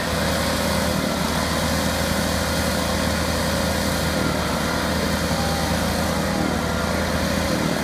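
Lawnmower engines idling steadily at an even pitch.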